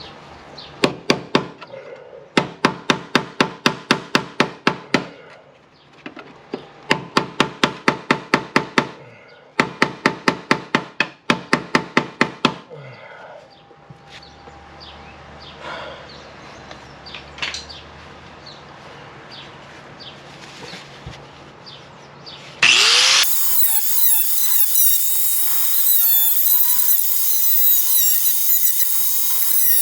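Rapid sharp hammer blows, about five a second, in bursts of a few seconds, knocking loose a stuck part on a Range Rover Classic's rusted firewall. Lighter scraping follows. About 23 seconds in, a loud power tool starts up and keeps running.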